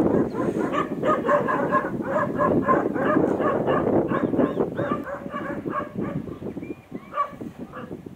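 Several dogs barking in quick, overlapping volleys, dense for about the first five seconds and then thinning out.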